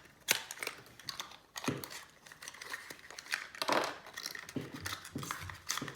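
Crinkling and rustling of packaging, with scattered light clicks and taps, as a small speedcube accessory box is opened and its contents handled. The clearest rustles come about a third of a second in, near the two-second mark and again just before four seconds.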